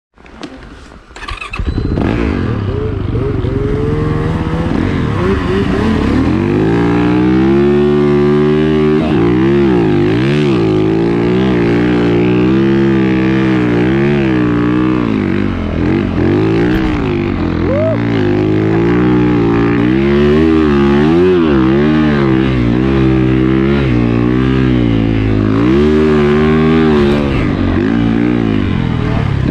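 Snowbike engine (a dirt bike on a Timbersled track kit) revving up and down over and over as it is throttled through tight trees in deep snow. It comes in loud about a second and a half in, after a few faint clicks.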